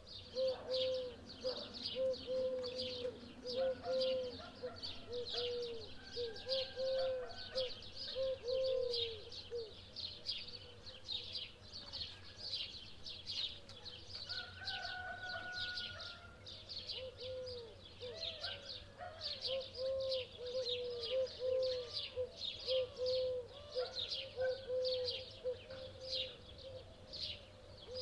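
Birds calling. A fast, steady series of short high chirps, about two or three a second, runs over a lower note that repeats again and again. The lower note breaks off for several seconds midway, then comes back.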